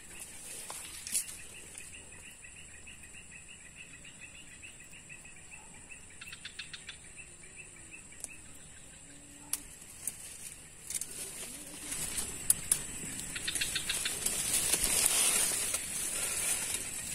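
Outdoor swamp ambience: a steady high-pitched insect drone with rapid pulsing trills of insects and birds, a few small ticks, and a swell of rustling noise over the last few seconds.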